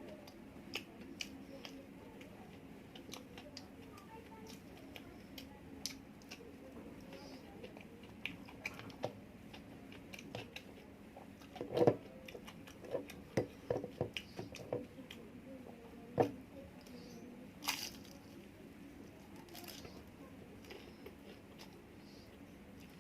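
Close-miked eating sounds: chewing, with scattered wet clicks and crunches. A run of louder bites and crunches comes about halfway through.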